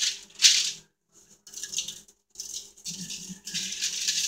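Adobo seasoning shaken from a shaker jar, the granules rattling in quick shakes. Two sharp shakes open it, then a pause of about half a second, then another shake and a longer run of shaking.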